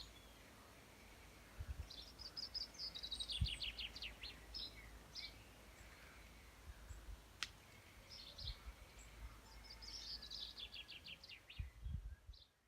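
A songbird singing two phrases, each a quick run of repeated notes stepping downward, with a pause between them. A single sharp click comes about halfway through.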